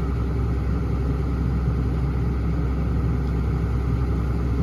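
Diesel engine of a hydraulic excavator running steadily, a constant low drone.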